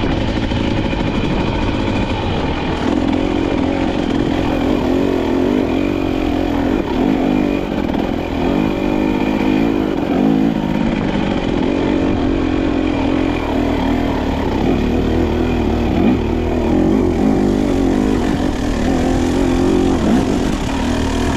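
KTM off-road dirt bike engine running under load on a steep trail climb, its revs rising and falling steadily.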